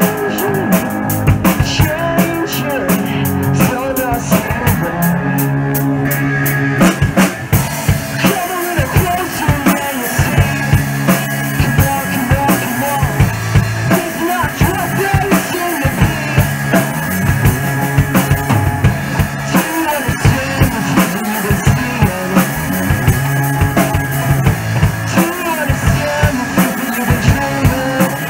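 Live rock band playing an instrumental passage on guitars and a drum kit. The first several seconds are dense and cymbal-heavy; about seven seconds in the drums settle into a steady beat under sustained low guitar notes.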